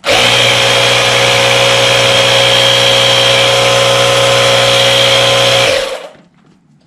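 A portable 12-volt tire pump's compressor running: a loud, steady hum that starts suddenly and stops after about six seconds.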